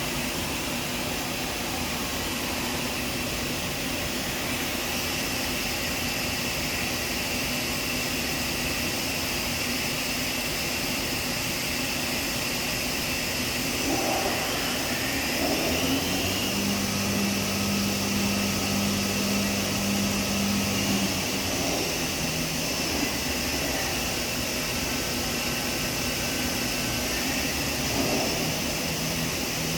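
Steady industrial machine noise: a continuous mechanical whir with a few thin high steady tones, and a low hum that comes in for about five seconds near the middle.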